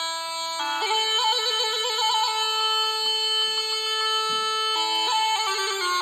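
Background music: a wind-instrument melody of long held notes decorated with quick trills.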